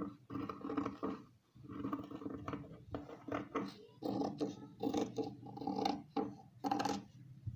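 Scissors cutting cotton frock fabric along the front armhole curve, a run of irregular snips with short pauses between them.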